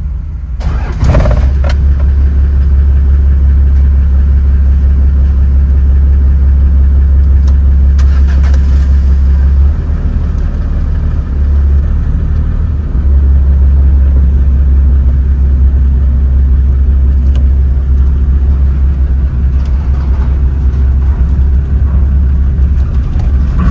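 Steady, loud, low engine rumble of a running heavy vehicle, dipping briefly about ten seconds in.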